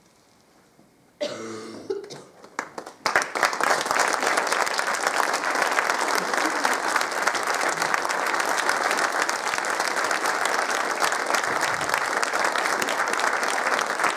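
Near silence, then about a second in a voice calls out and scattered clapping starts, swelling within a couple of seconds into steady audience applause.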